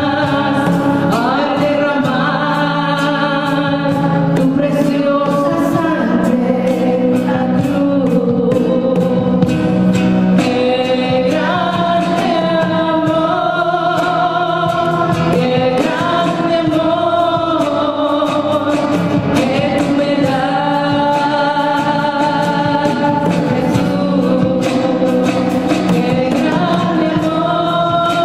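A woman singing a Spanish-language hymn, accompanying herself on acoustic guitar, with congas keeping a steady beat.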